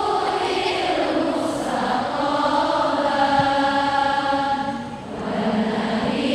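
Voices chanting in long, held sung notes, with a short break about five seconds in before the chant resumes.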